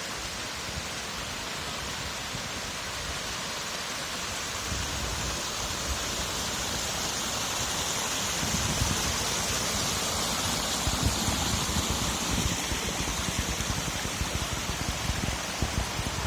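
Waterfall rushing: a steady hiss of falling water that slowly grows louder, with an uneven low rumble underneath from about halfway through.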